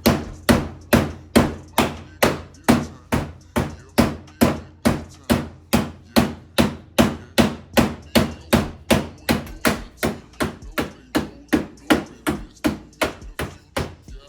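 Hammer blows on the car's wheel-well lip, struck at a steady rhythm of about two and a half blows a second, each ringing briefly: the fender edge is being beaten back because it was cutting into the tires.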